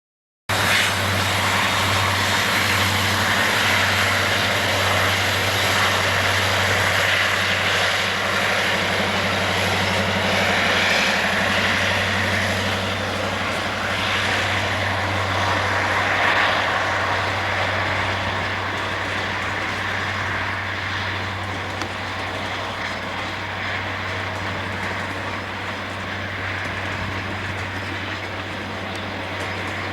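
Diesel locomotives of a Southern Pacific freight train working uphill, giving a steady, heavy engine drone that eases off slightly in loudness over the stretch.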